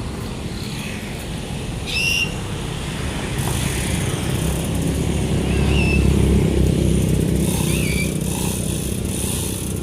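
A motor vehicle engine running with a low rumble that grows louder toward the middle and eases off again, with a few short high chirps over it.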